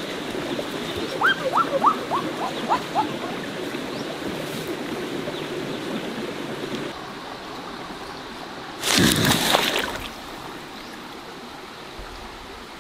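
Shallow river water flowing steadily over rocks. A few short rising chirps come between about one and three seconds in, and a louder rush of water about nine seconds in lasts about a second.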